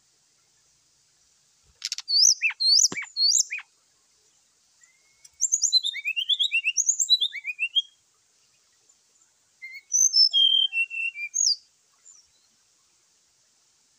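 Brown-chested jungle flycatcher singing in three quick bursts of rapid, high whistled notes that slide up and down, each burst a couple of seconds long with short pauses between.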